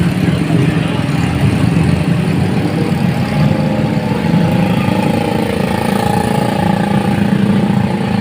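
Large vehicle engine running steadily, with a higher tone joining in and slowly rising from about three seconds in.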